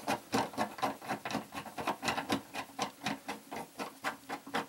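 A screwdriver turning the clamp screw of a saddle valve bracket on a PEX water line, a steady run of small clicks about four a second as the screw is driven down.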